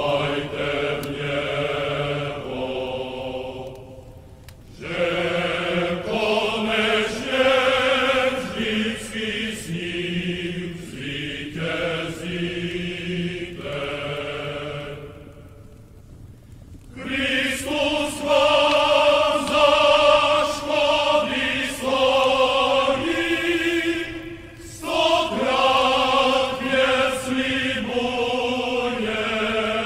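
Sung chant by a choir of voices: slow phrases of held notes, each phrase breaking off briefly about four, fifteen and twenty-four seconds in.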